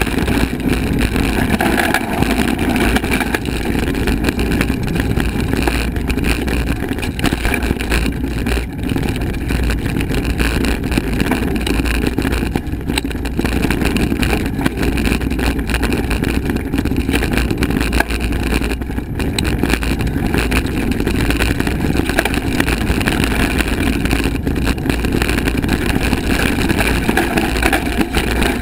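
Wind buffeting an action camera's microphone over the rumble of a hardtail mountain bike's tyres rolling fast on dirt singletrack: a loud, steady rush with small knocks from the rough ground.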